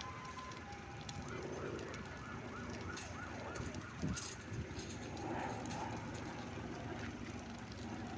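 Dry grass and reeds burning with a steady rush and scattered sharp crackles, one louder pop about four seconds in. A distant two-tone siren alternates between two pitches in the first second, followed by a quick run of short warbling tones.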